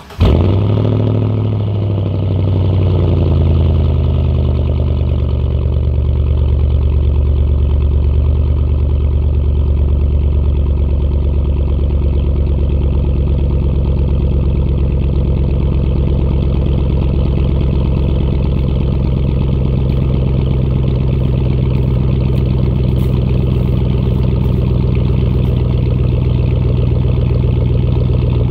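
2003 Chevrolet Silverado engine catching on a cold start and running through a muffler-deleted 3-inch exhaust, with the muffler swapped for straight pipe. It fires right at the start, flares for a couple of seconds, then settles into a steady idle.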